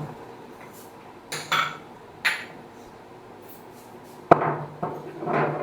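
Kitchen utensils being handled: a handful of short knocks and clinks of metal and glass vessels, with the sharpest and loudest knock about four seconds in.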